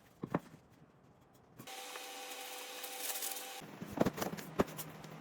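Woodworking on lumber. A couple of knocks come first, then about two seconds of steady rasping, like cutting or rubbing wood, then two sharp knocks.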